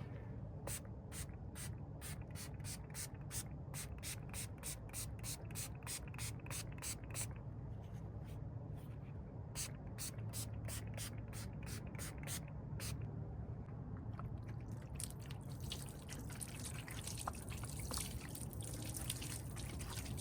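Trigger spray bottle spritzing headlight restoration surface activator onto a headlight lens in quick, evenly spaced squirts, about three a second, with a short pause about halfway. Near the end the squirts give way to a softer, continuous hiss.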